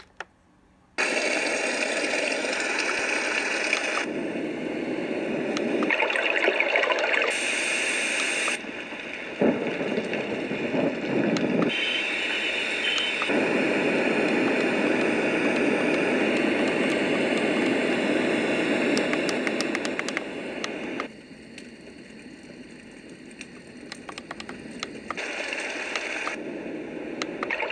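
Homedics SoundSpa clock radio playing its built-in nature sounds through its small speaker: a steady water-like rushing that jumps abruptly to a different track every few seconds as the sound buttons are pressed. A button click comes just before it starts, and the last tracks are quieter.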